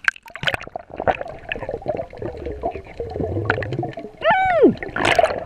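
Water sloshing and gurgling against a camera at the surface as it goes under, with a few sharp clicks early on and muffled noise once it is underwater. About four seconds in, a brief pitched sound rises and then falls.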